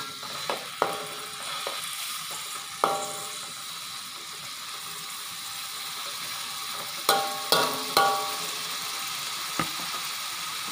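White mushrooms sizzling in oil in a metal wok as a spatula stirs them. The spatula knocks against the wok a few times, each knock ringing briefly: once about a second in, again about three seconds in, and three times in quick succession around seven to eight seconds in.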